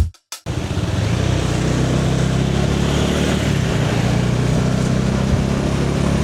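Bajaj Dominar 400's single-cylinder engine running at a steady cruising speed while riding, with wind rushing over the microphone. It starts about half a second in, after the end of a short music beat.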